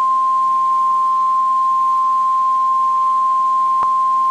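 NOAA Weather Radio's 1050 Hz warning alarm tone: one steady, unbroken electronic tone that signals a weather alert message is about to be read. A faint click sounds near the end.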